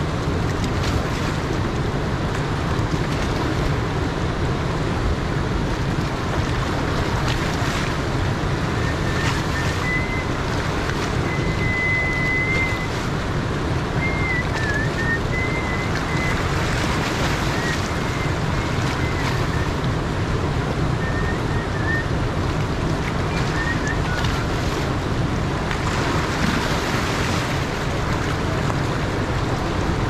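Steady rushing of a fast, swollen river running through rapids and around boulders, with a few thin, high whistled notes in the middle.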